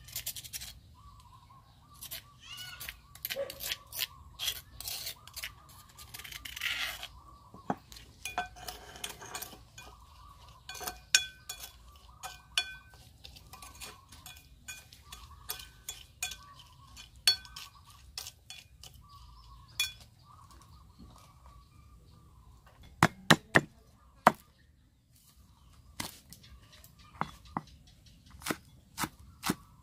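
Metal spoon clinking and scraping against a stone mortar and a ceramic plate as paste is scooped out, with scattered knocks. Near the end, a cleaver chopping spring onions on a round wooden board in a steady run of strokes, about two a second.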